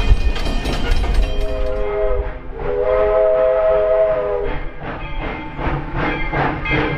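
Steam locomotive V&T No. 25 sounding its chime whistle, three notes together: a shorter blast about a second in, then a long blast of about two seconds. Before it the wheels rumble and click over the rail joints, and after it a rhythmic beat of about three strokes a second carries on.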